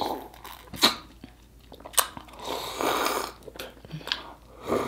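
Close-miked eating sounds from a piece of lemon-soaked king crab: two sharp cracks of shell, then longer wet sucking and slurping as juice and meat are drawn out of the shell, once around the middle and again near the end.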